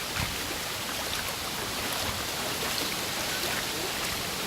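Stream water running with a steady, even rush, and one soft low bump just after the start.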